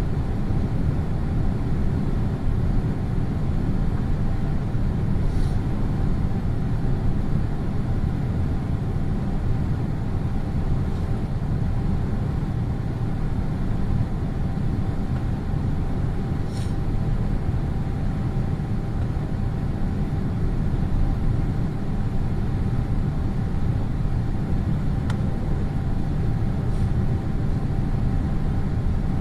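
Inside the cabin of a Boeing 787-8 airliner in descent: a steady low rumble of airflow and engines, with a faint steady whine on top.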